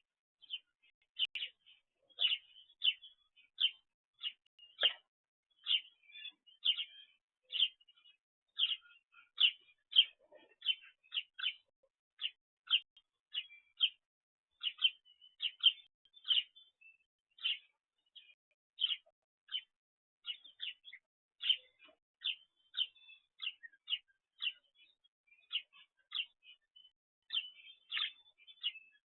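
Bird chirping over and over: short, sharp, high chirps, roughly two a second, in an irregular run.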